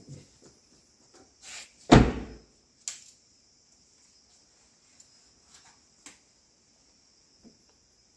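A car door slammed shut about two seconds in, followed by a few small clicks, over a steady high chirring of crickets.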